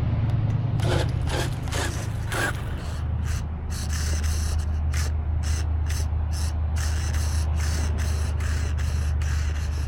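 Redcat Volcano EPX RC monster truck's drivetrain clicking and ratcheting irregularly, over a steady low hum.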